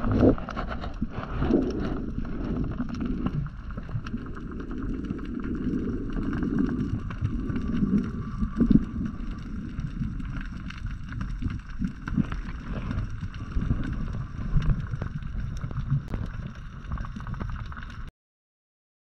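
Underwater ambience picked up by a camera below the surface: a steady low rumble of moving water with occasional thumps and a fine crackle of faint clicks. It cuts off abruptly near the end.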